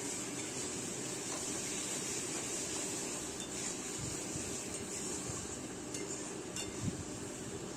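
Metal spatula stirring and scraping thick potato masala around a metal kadhai, with a few light clinks of the spatula against the pan and one small knock near the end.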